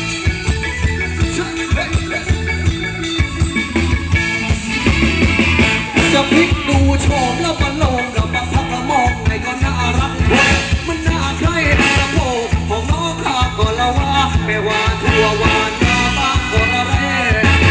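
Live band playing Thai ramwong dance music with a steady, heavy beat and a voice singing the melody over it.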